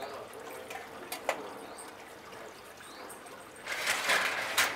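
Stainless-steel grill-rack drawer of a Beefmaker Pro infrared grill slid along its rails for about a second, a metallic scrape ending in a sharp clack as it shuts, with a single metal click earlier.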